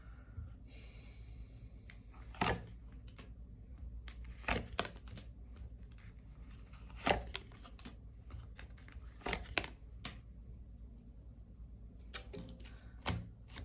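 Tarot cards being handled on a table: a soft rustle about a second in, then scattered sharp taps and snaps every couple of seconds as cards are moved and laid down.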